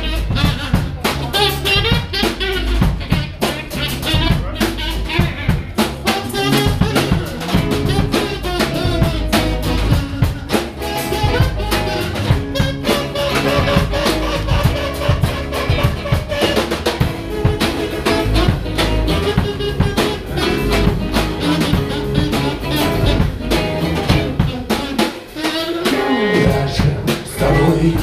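Live band playing an instrumental passage: a drum kit keeps a steady beat under electric guitar and bass, with a harmonica played into the vocal microphone.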